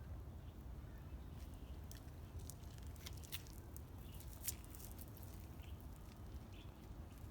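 A cat eating, with faint scattered crunching clicks from its chewing over a steady low hum.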